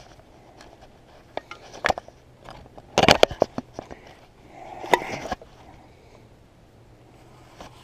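Handling noise of an empty aluminium drink can and paracord: a scatter of sharp clicks and knocks, loudest in a quick cluster about three seconds in, then a short scraping rustle as the cord is worked through the can's pull tab.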